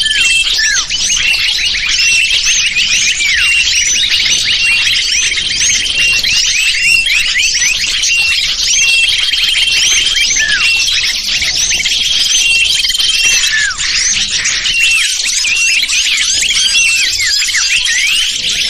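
Bird-lure call of many small songbirds chattering together: dense, overlapping high chirps, most falling in pitch, with a held high whistle-like note that comes back every couple of seconds.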